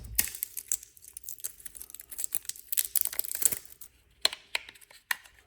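Plastic packaging crinkling and tearing under the hands, with many small crackles and clicks, as batteries are unwrapped to go into the remote control. The crackling thins out after about three and a half seconds, leaving a few sharper taps.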